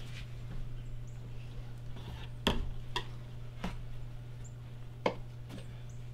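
Scattered knocks and clicks of a knife and raw venison being handled on a plastic cutting board, five or six in all, the loudest about two and a half seconds in.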